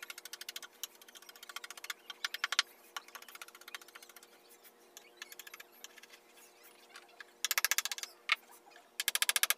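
A small hammer tapping rapidly on a wood-carving chisel as it cuts into a wooden panel, in short runs of quick light strikes; the loudest runs come near the end. A faint steady hum lies underneath.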